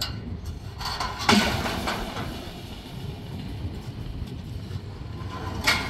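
Metal stock-yard gear clanking: a loud clang about a second in that rattles on for about a second, and another sharp clank near the end, over a low steady rumble.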